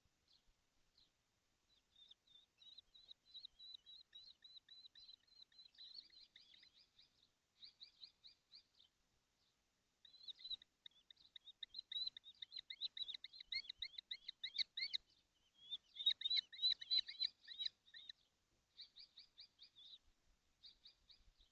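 Young kestrels calling from the nest: rapid runs of short, high, thin notes in several bursts, loudest about two-thirds of the way through.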